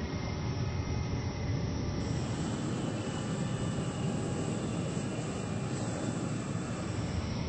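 Jet aircraft engine running steadily: an even rushing noise, heaviest in the low range, with faint steady whine tones above it.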